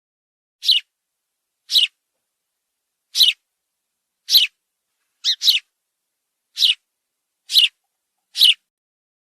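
House sparrow chirping: single short, high chirps about once a second, one of them doubled about five seconds in, with complete silence between.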